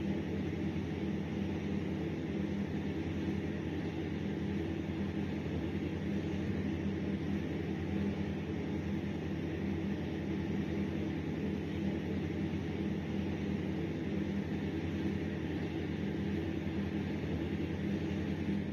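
Steady low hum with a layer of hiss over it, unchanging throughout, with no barks, footsteps or other distinct sounds standing out.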